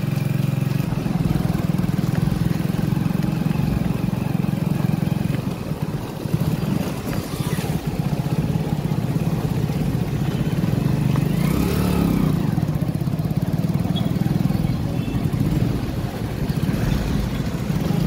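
Motorcycle engine running steadily while it is ridden, heard from the rider's seat, with city traffic around it.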